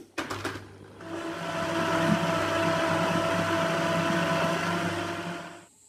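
Countertop blender switched on with a few clicks, then its motor running as it purées a thick mixture of banana, avocado, berries and yogurt. The motor gets louder over the first couple of seconds, runs steadily, then cuts off near the end.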